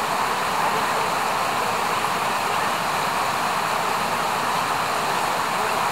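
Steady rush of flowing water, a mountain river running over rocks, as an even hiss with no change in level.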